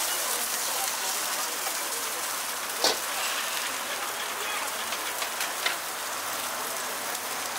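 Egg pancake batter and fillings sizzling in oil on a street-food griddle, a steady crackling hiss. A sharp metal knock about three seconds in, with a couple of lighter taps later.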